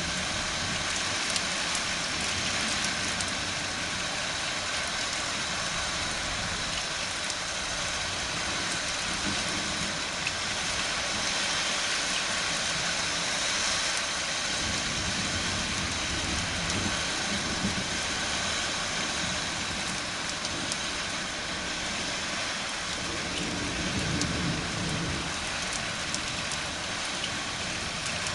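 Steady rain falling during a thunderstorm, an even hiss that holds at one level throughout. Faint low rumbles rise under it about halfway through and again near the end.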